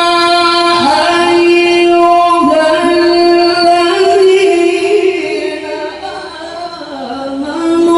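A man recites the Qur'an in the melodic tilawah style into a microphone, holding long, steady, ornamented notes. The phrase tapers off about two-thirds of the way through, and a new long held note starts just before the end.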